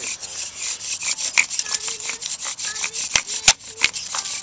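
Bow drill friction fire: a wooden spindle is spun back and forth in a notched fireboard by a bow, making rhythmic wood-on-wood rubbing strokes with a few short squeaks and one sharp click about three and a half seconds in. This is the drilling stage that grinds out hot dust to form an ember.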